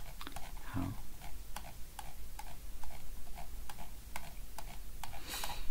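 A string of light clicks, about three or four a second and a little uneven, typical of a computer mouse's scroll wheel being turned through a document.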